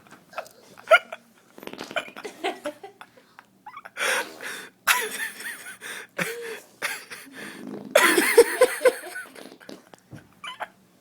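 A toddler blowing raspberries (mouth farting noises) against bare skin, mixed with a woman's breathless laughter, in several loud bursts, the longest about eight seconds in.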